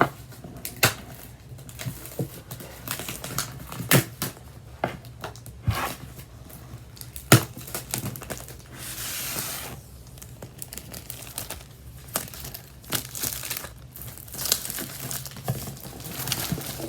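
Packaging on a MacBook Air box being torn and crinkled as it is pulled off, with scattered sharp clicks and taps and a longer tearing rustle about nine seconds in.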